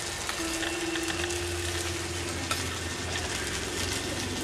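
Sliced onions, ginger-cumin paste and freshly added tomato pieces sizzling steadily in hot oil in a pan, with a spatula stirring through them.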